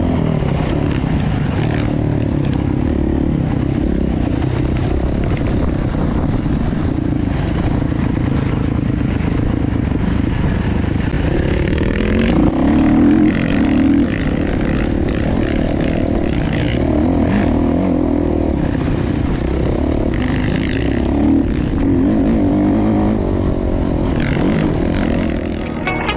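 Kawasaki KX450F single-cylinder four-stroke motocross bike running under changing throttle on a dirt track, heard from on the bike, with a brief louder burst of throttle about halfway through.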